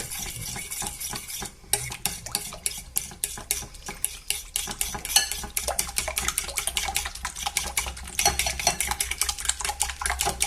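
Egg and milk omelette mixture being beaten in a bowl, the utensil clinking against the bowl in quick strokes, with a short pause about a second and a half in.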